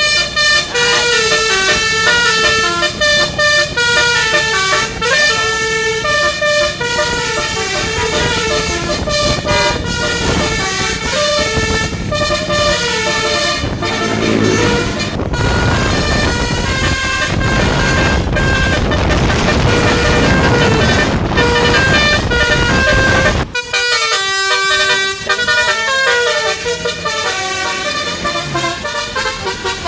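Telolet basuri musical bus horn playing quick tunes, its several trumpet tones stepping from note to note. In the middle stretch loud engine and road noise runs under the horn, stopping suddenly about three-quarters of the way in.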